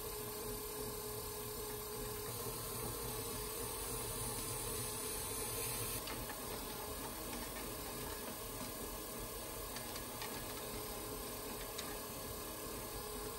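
Electric potter's wheel running while a trimming tool shaves leather-hard black clay from the foot of an upturned pot: a steady scraping hiss over the wheel's hum.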